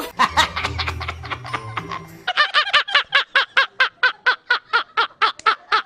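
A short stretch of music with a deep bass line, then, from about two seconds in, a man's loud laughter from an edited-in meme clip: a rapid, even 'ha-ha-ha' at about seven a second.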